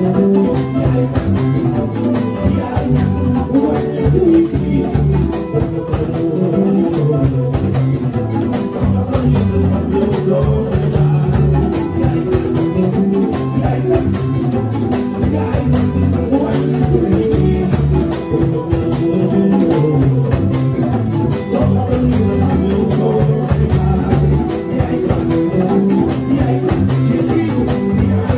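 A live band playing with electric, acoustic and bass guitars, keyboard and percussion, keeping a steady beat.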